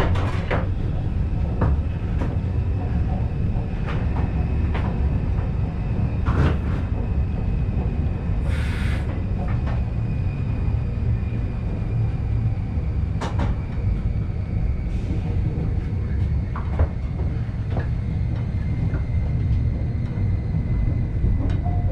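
Vintage electric train running, heard from inside the driver's cab: a steady low rumble with irregular clicks and knocks, and a short hiss about nine seconds in. A faint high whine comes in from about ten seconds and holds.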